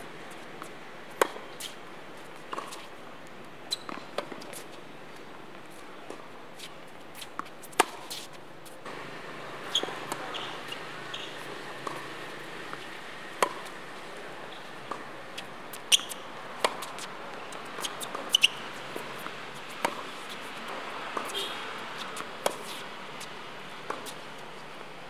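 Tennis ball being struck by racket strings and bouncing on a hard court during a singles rally: sharp pops a second or two apart, the loudest ones from the near player's shots.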